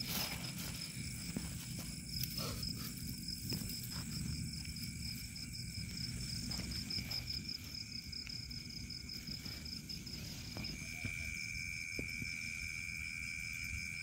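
Night insects trilling steadily in two high pitches, one a fast pulsing trill and the other a continuous whine that grows louder about eleven seconds in. Scattered short rustles of nylon tent fabric being handled.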